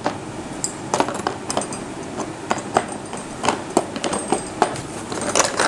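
Rustling packaging and irregular clicks, knocks and clinks as the parts of a hand mixer, its beaters and stand, are handled in and out of their cardboard box.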